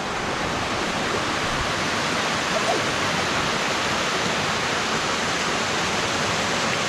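Creek waterfall pouring steadily over rocks, a constant rush of water.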